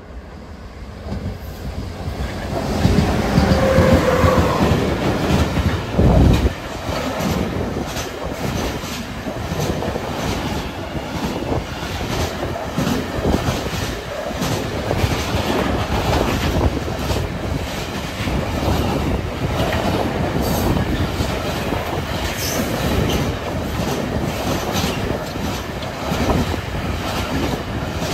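An electric locomotive hauling a fast intermodal freight train of semitrailers on low wagons passes close by. The sound builds over the first few seconds and is loudest about three to six seconds in as the locomotive goes by. It then settles into the steady rumble of the wagons' wheels on the rails, with frequent clicks over the rail joints.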